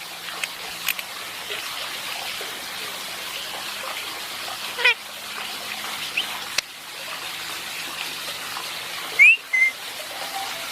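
Steady hiss of running water with a parrot calling over it: a short call about five seconds in and a sharp rising squawk near the end.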